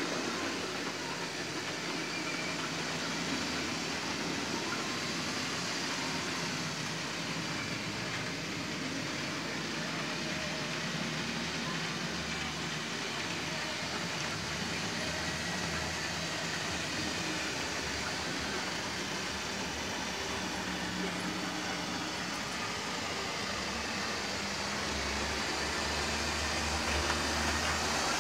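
Model railway trains running on the layout: a steady whirr of locomotive motors and the rattle of wagon wheels on the track, growing louder over the last few seconds as another train approaches.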